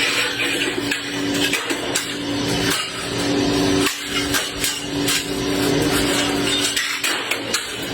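Motorized rolling steel gate running: a steady motor hum with clicking and rattling from the moving curtain. The hum breaks off briefly several times.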